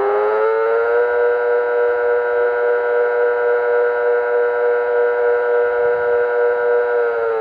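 Siren wail with a stack of harmonics. It finishes rising in pitch about a second in, holds one steady loud tone, and starts to fall just before the end.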